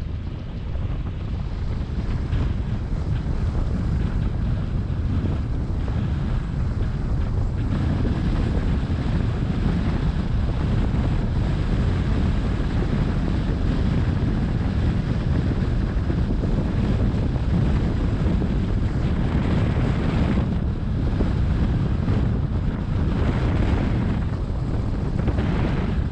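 Wind buffeting the microphone: a steady low rumble that swells in stronger gusts near the end.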